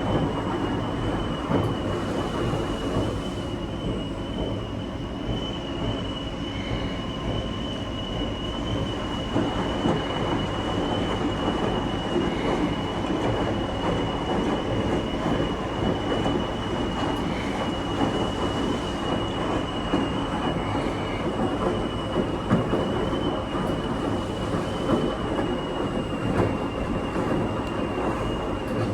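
Coin-laundromat machine running: a steady rumble with a thin, constant high whine and irregular small knocks from the turning drum.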